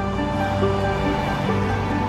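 Slow background music: held melody notes that change every half second or so over a steady low bass note.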